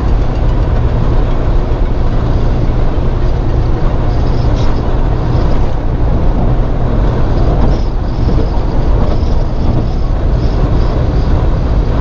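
Steady road and wind noise inside a Ford Crown Victoria Police Interceptor's cabin, cruising at highway speed.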